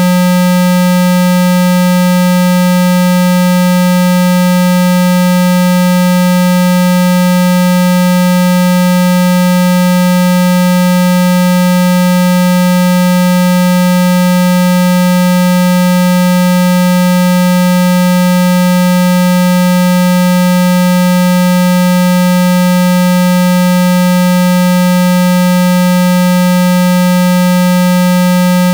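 Loud, steady 195 Hz electronic test tone, a continuous low hum with fainter higher tones above it, played as a water-eject sound to vibrate water out of a phone speaker.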